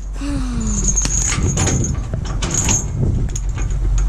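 Light metallic clicks and rattles over a steady low vehicle rumble, with a short falling whine about a quarter of a second in.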